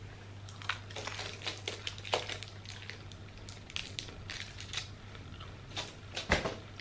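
Someone chewing food close to the microphone: a steady run of small crunching and clicking mouth sounds, with a louder crunch near the end.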